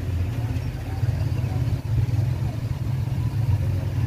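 A steady low rumble, like an engine idling.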